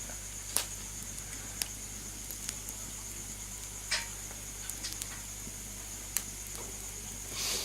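A wood fire burning wet firewood, crackling with a handful of sharp, separate pops over a steady hiss and a constant high-pitched whine. The loudest pop comes near the end.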